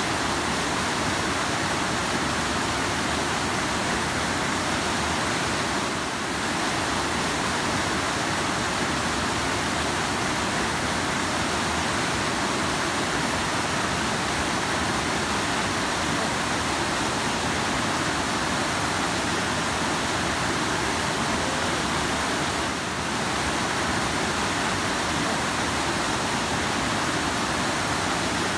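Rushing river water running with a steady, even roar that dips slightly twice.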